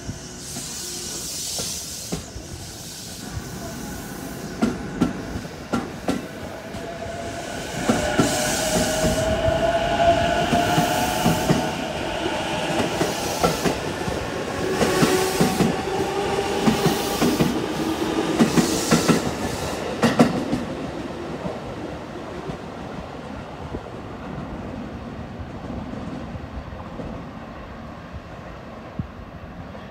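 JR Yokohama Line E233-series electric train accelerating away: its traction motors give a rising whine while the wheels click over the rail joints in a steady rhythm. The sound fades away after about twenty seconds as the train leaves.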